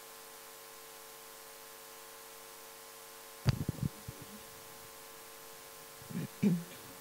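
Steady faint hum and hiss, broken by a sharp knock about three and a half seconds in, followed by a few quick low bumps, and two short low thuds near the end.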